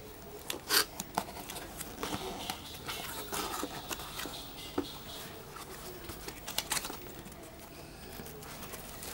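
Cardboard box flaps being pulled open and handled: cardboard rustling and scraping, with a few sharp taps, the loudest near the start.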